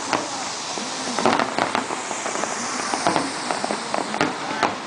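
Fireworks display: aerial shells bursting in a rapid, irregular string of sharp bangs over a continuous crackling hiss.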